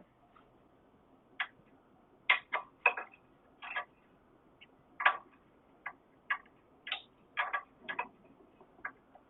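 Scattered sharp clicks and taps of hand tools and metal parts being handled, about fifteen at an irregular pace.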